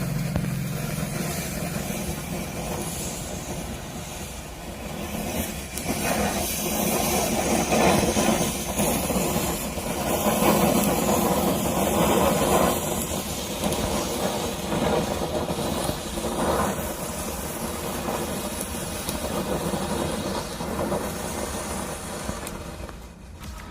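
A firework burning with a continuous rushing hiss that swells louder around the middle and then eases off, with no bangs.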